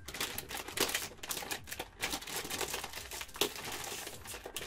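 Plastic potato-chip bag crinkling and crackling as it is pulled hard to open it, in a run of irregular sharp crackles.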